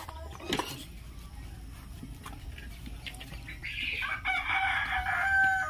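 A rooster crowing once: a long call of about two seconds near the end, sliding slowly down in pitch. Before it, chickens cluck now and then in the coops.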